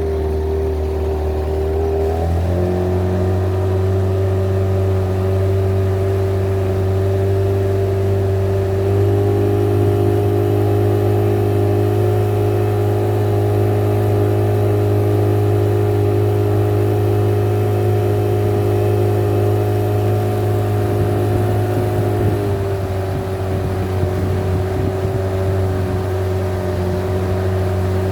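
Boat motor running steadily under way. Its pitch steps up a little about two seconds in and again about a third of the way through, then drops back to the lower speed a little before the end.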